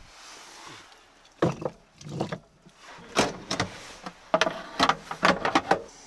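A dozen or so short wooden and metal knocks and clunks in small clusters: split firewood being handled and the door of a small wood stove being opened.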